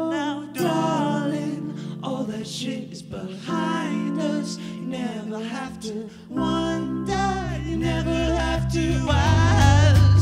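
A live indie-pop band plays a song: a male lead voice sings over sustained keyboard synth chords, with electric guitar. About six seconds in a heavy bass comes in, and the band builds louder near the end.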